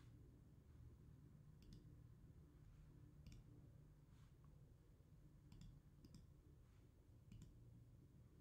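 Near silence with several faint, scattered computer mouse clicks.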